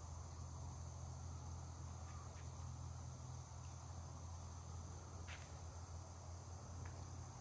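Insects chirring in a steady high drone, over a low steady hum, with a few faint clicks.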